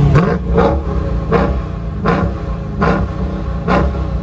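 Supercar engine held at raised revs, with a run of sharp exhaust cracks about one every three quarters of a second; the revs start to drop near the end.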